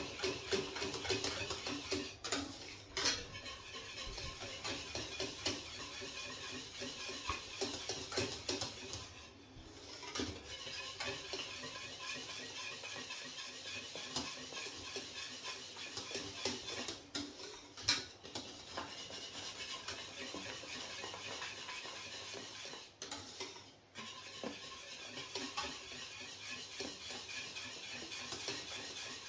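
Wire whisk beating pastry cream in a stainless steel saucepan as it cooks out on the heat: a fast, steady clatter and scrape of the wires against the pan, with two brief pauses, about a third of the way in and again near the end.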